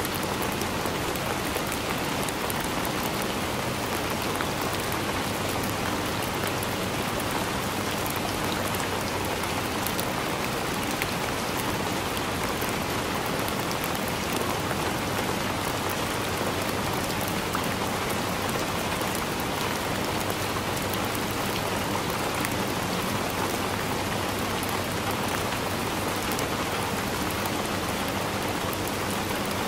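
Heavy rain falling steadily on a window, with a heater humming faintly underneath.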